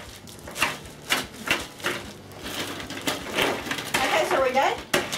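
Plastic zip-top bags crinkling, with ice knocking inside, as they are handled and pressed shut: a string of irregular sharp crackles and clicks. A brief voice comes in about four seconds in.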